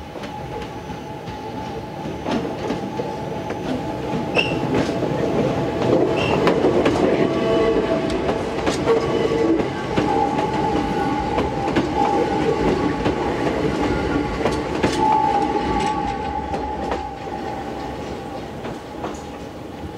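Hakone Tozan Railway electric train passing on a curve: wheels clicking over the rail joints with a steady high squeal from the wheels. It grows louder as the train comes close, then eases off as it moves away.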